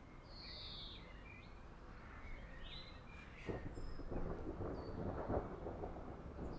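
Thunder begins rumbling and crackling about halfway through and grows louder, while birds give short calls in the first half.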